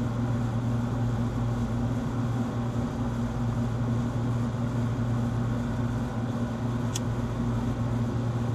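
A steady, low machine hum holding an even drone, with a single sharp click about seven seconds in.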